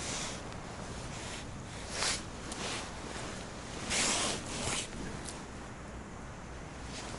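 Fabric rustle of a synthetic winter jacket sleeve as the arm moves: three or four short swishes, the loudest about four seconds in.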